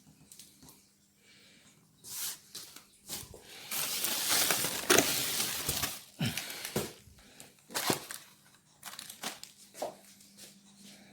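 Packaging rustling and crinkling as plastic-wrapped bike parts are handled and lifted out of a cardboard shipping box. It is loudest for about two seconds near the middle, with a few short knocks and scrapes around it.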